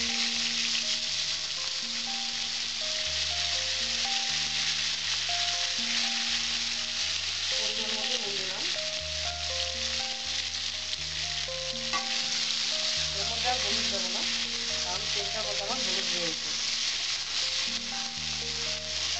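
Cauliflower florets frying in hot oil in a metal kadai: a steady sizzle, with a spatula stirring and scraping them in the pan later on.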